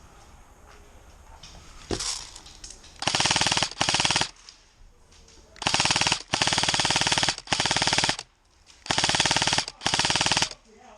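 Airsoft gun firing on full auto in short bursts, about seven of them, each well under a second, starting about three seconds in as a rapid run of clicks.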